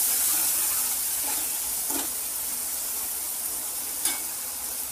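Onion, garlic, chilli and spice masala sizzling in hot oil in a metal kadai. A splash of water has just gone in to help the masala fry, and the hiss slowly dies down. A metal ladle stirs it, knocking lightly against the pan about two seconds in and again near the end.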